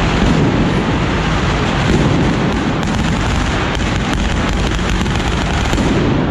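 Fireworks bursting on a ceremonial cart: a dense, continuous crackle of rapid bangs and pops.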